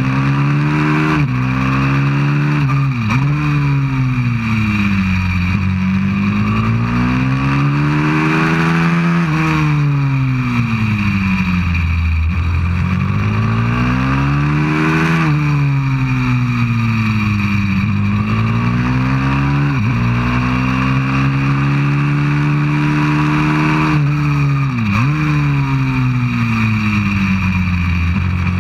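A 190cc pit bike's single-cylinder four-stroke engine at full race pace, heard from on board. Its revs climb under acceleration, dip sharply at each gear change and fall away more slowly when braking for corners.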